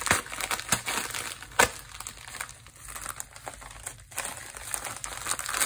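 Plastic poly mailer bag crinkling and rustling as it is handled, with one sharp click about a second and a half in.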